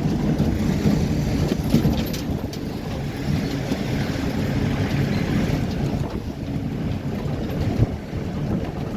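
A truck in motion, heard from on board: steady engine and road rumble, with wind buffeting the microphone.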